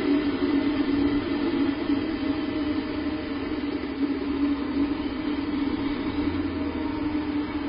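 Steady hum over a rushing hiss with no distinct call, knock or other event: the constant background noise picked up by an eagle nest camera's microphone.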